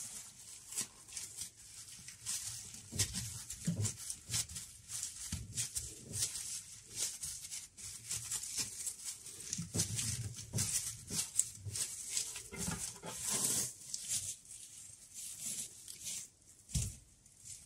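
Bamboo sushi rolling mat rustling and clicking on a wooden cutting board as hands roll and press a maki roll, with scattered soft knocks and handling noise.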